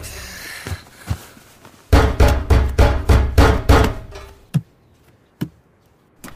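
Heavy fist pounding on a door, about four blows a second in a run of roughly eight, after a couple of single thumps. Near the end come two sharp single clicks.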